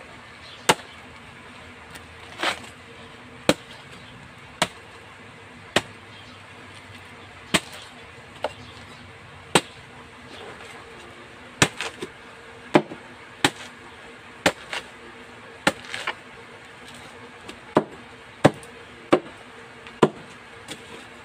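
Banana trunk (pseudostem) being chopped into pieces with a knife blade: sharp chopping strikes, about one a second at an uneven pace.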